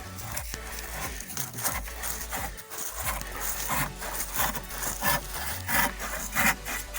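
Hand saw cutting through a wooden board in repeated rasping strokes, about two to three a second, getting louder in the second half.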